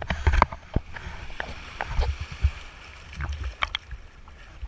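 Sea water sloshing and splashing right at the surface, with irregular sharp splashes and knocks over a low rumble.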